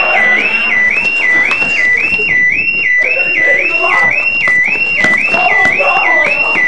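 Electronic alarm siren sounding a repeating rising whoop, about two cycles a second, with people's voices faintly underneath.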